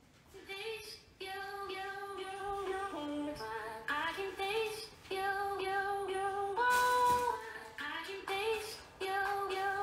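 A song with a woman singing a melody comes in about half a second in, with a long held note near the middle.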